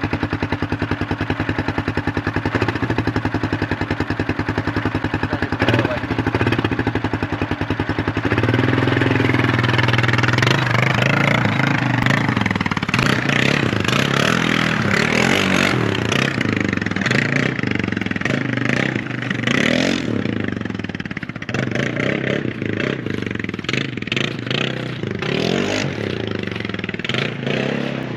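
Four-wheeler (ATV) engine idling with a steady pulse, then revving up about eight seconds in and running at rising and falling revs as it is ridden.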